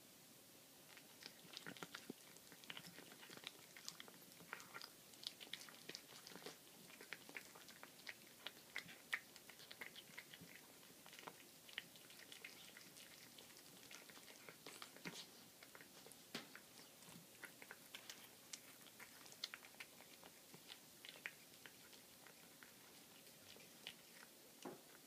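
Domestic cat chewing on a raw baby rabbit carcass: faint, irregular wet clicks and crunches of teeth through flesh and bone, several a second, with pauses.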